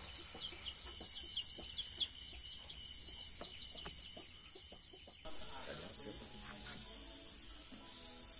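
Chicks peeping faintly in short falling notes at night. About five seconds in the sound cuts abruptly to a night insect chorus, crickets chirping in a steady pulsing trill.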